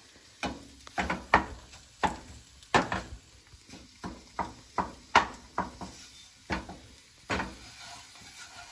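Wooden spatula knocking and scraping against a frying pan while scrambled eggs are stirred: irregular sharp taps, about two a second.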